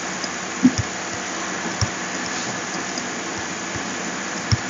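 Steady background hiss with three short, soft computer-mouse clicks, about a second apart early on and one near the end.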